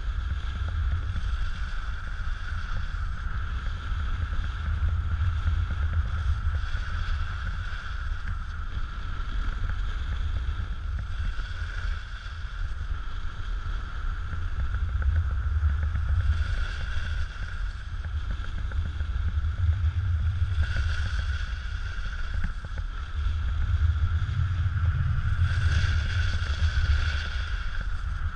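Wind buffeting a helmet-pole action camera's microphone on a fast snowboard run, with the board hissing over packed snow in swells that are strongest near the end. A steady high whine sits under the rumble.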